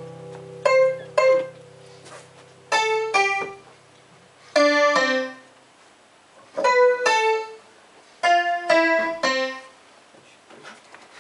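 Electric keyboard playing short, separate piano-like notes in pairs, with a pause of about a second between pairs and a group of three notes near the end.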